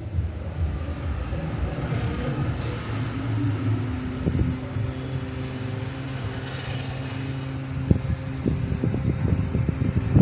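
A steady engine hum over a low rumble, with a few soft knocks on the microphone near the end.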